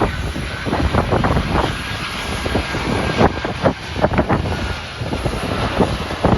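Aircraft engine noise, a steady rushing hiss, heavily buffeted by strong wind gusting on the microphone in irregular thumps.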